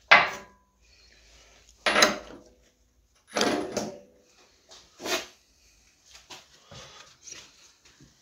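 Four loud metal knocks and clunks from work on the front wheel hub, a couple of seconds apart, while the driveshaft's CV joint is being freed from the hub, followed by quieter tool rattling.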